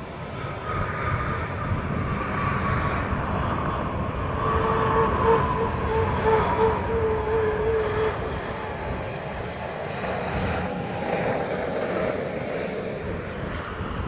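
Airbus A320's jet engines heard from inside the cabin during the landing rollout: a steady rush with whining tones that slowly sink in pitch as the engines spool down from reverse thrust, loudest about five to seven seconds in.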